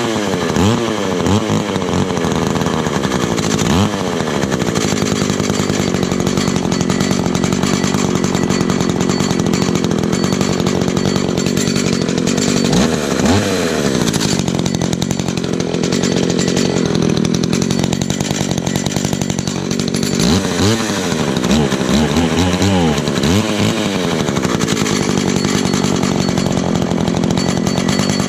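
Stihl 015 chainsaw's small two-stroke engine running continuously after its rebuild, revved up and back down several times while the carburetor's high and low jets are adjusted.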